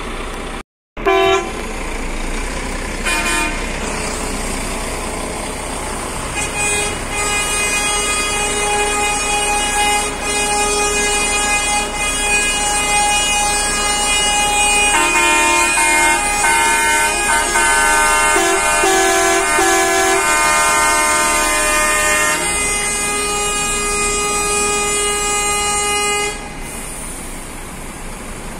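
Bus and coach horns honking in protest. A couple of short blasts come first, then several horns sound together for about twenty seconds, with a second, different-pitched horn joining midway, before they cut off suddenly.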